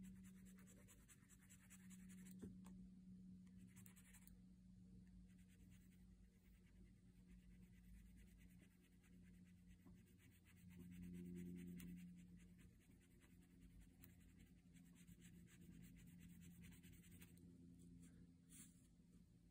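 Faint pencil scratching on paper: rapid, continuous strokes of hatching and shading. A low steady hum sits underneath and swells briefly about halfway through.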